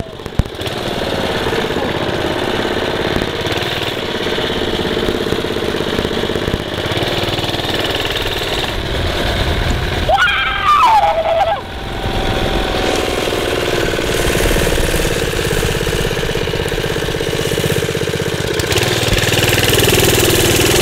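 Minibike engine running as the bike is ridden, its pitch drifting with the throttle. About ten seconds in it gets louder with a falling pitch, then drops off suddenly.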